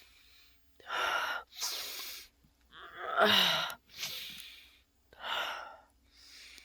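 A person's sharp gasping breaths building up to a sneeze, the loudest, voiced burst about three seconds in, followed by more breathy gasps.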